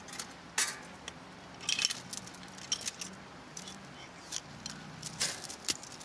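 Fence chain strainer being unhooked from tensioned wire: its metal chain and fittings clinking and jangling in irregular bursts of sharp clinks.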